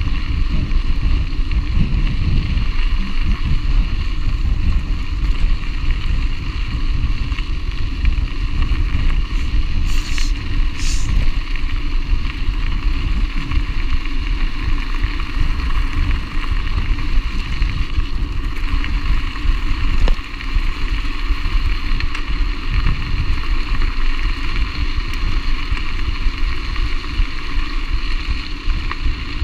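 Steady wind noise on the microphone and low rumble and rattle from a mountain bike rolling fast over a gravel road, with two brief high hisses about ten seconds in.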